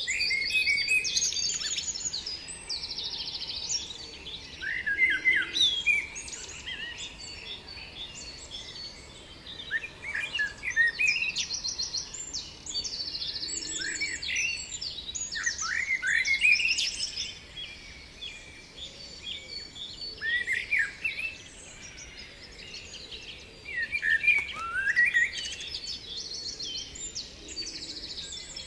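Several songbirds singing over one another: quick slurred whistles and rapid trills that come in bursts every few seconds.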